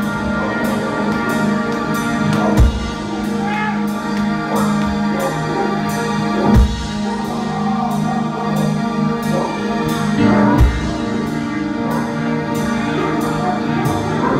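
Live rock band playing: held keyboard chords over bass, regular high cymbal-like ticks, and a deep drum hit about every four seconds.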